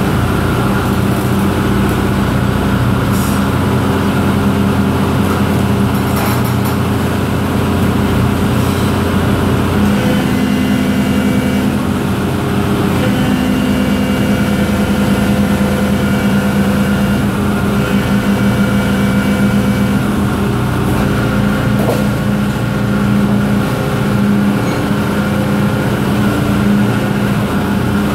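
Excavator's diesel engine and hydraulic system running steadily under the rock splitter attachment. The pitch shifts about ten seconds in and again a few seconds later as the arm brings the splitter up to the rock face.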